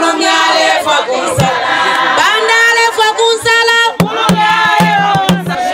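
A group of voices singing a traditional chilanga mulilo song in chorus, with a few sharp strikes on large wooden hand drums about four seconds in.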